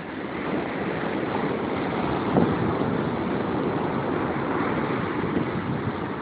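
Ocean surf breaking and washing up a sandy beach, a steady rushing noise, with wind blowing on the microphone.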